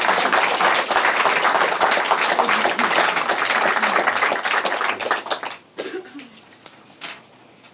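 Audience applauding, many people clapping together; the clapping dies away about five and a half seconds in, leaving a few scattered claps.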